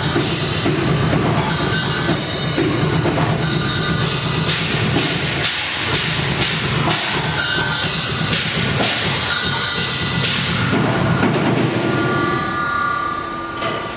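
Heavy metal music with the drum kit prominent, bass drum and snare driving it. It thins out over the last couple of seconds to a few sustained tones.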